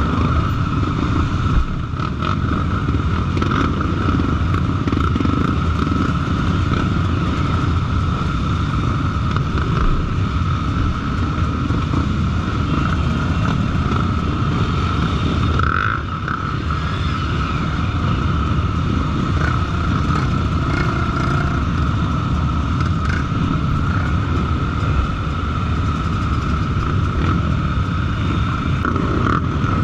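Motor vehicle running steadily: a continuous low rumble with a constant high whine over it.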